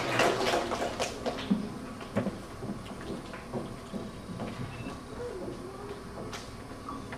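Audience applause dying away in the first second or so, then a gym full of people settling, with scattered knocks, rustling and low murmur.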